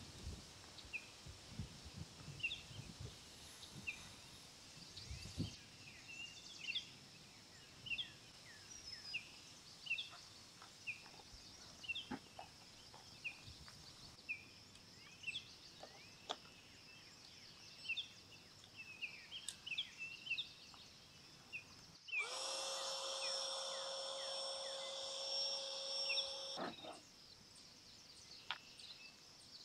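Birds give short, repeated chirps over a faint steady high buzz. About 22 seconds in, an electric air pump starts inflating an air sofa, runs at a steady pitch for about four seconds, then cuts off suddenly.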